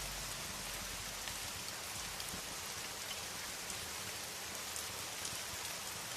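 Steady rain falling, an even hiss with a few faint scattered crackles.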